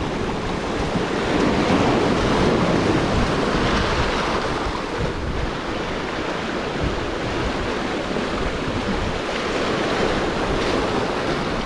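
Choppy sea washing and splashing against the rocky shore, a steady rushing wash that swells and eases, with wind rumbling on the microphone.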